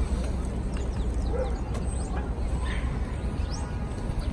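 Steady low background rumble with a few faint, brief high chirps scattered through it.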